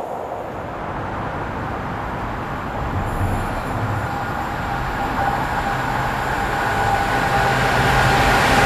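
Freight locomotive hauling a container train approaching on the line, its rumble growing steadily louder as it draws near. A faint steady whine comes in over the last few seconds.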